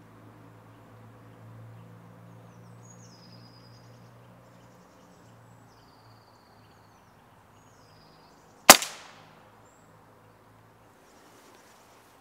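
A single shot from a Walther RM8 pre-charged pneumatic air rifle: one sharp crack about nine seconds in that dies away quickly, a squirrel being shot at the feeder.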